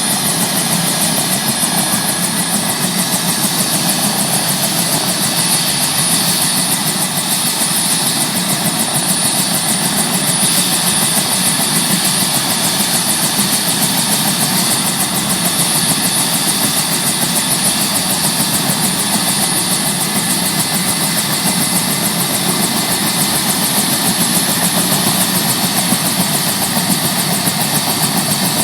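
Bell UH-1H Huey's Lycoming T53 turboshaft running steadily during ground run-up, with a high turbine whine over a fast, even rotor beat.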